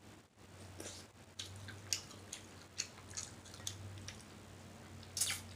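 A person chewing with the mouth open and lip smacking: irregular wet clicks and smacks, the loudest about five seconds in.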